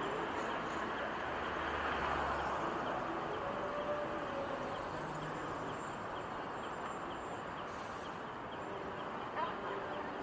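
Busy city street traffic: cars driving past a city bus, with indistinct voices of passers-by mixed in as a steady hubbub. A brief sharp sound stands out about nine seconds in.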